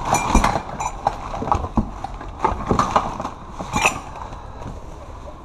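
Gloved hands rummaging through a cardboard box of paper-wrapped crystal glassware: crumpling packing paper and irregular knocks and clinks, a couple of them ringing briefly. The handling is busiest over the first four seconds and eases off near the end.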